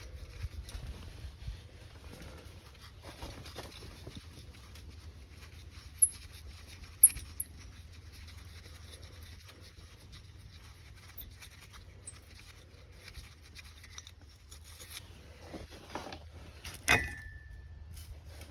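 Metal engine parts being handled by hand: faint scattered clicks and shuffling over a low steady hum, two sharp clicks about six and seven seconds in, and a louder metal clink near the end that rings briefly.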